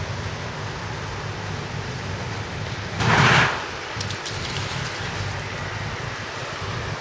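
Steady outdoor background rumble, with one short, loud rush of noise lasting about half a second, three seconds in, then a few faint clicks.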